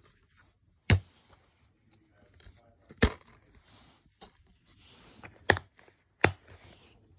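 Plastic DVD keep case being handled: several sharp clicks as the case is snapped open and shut, with light rustling of hands on plastic between them.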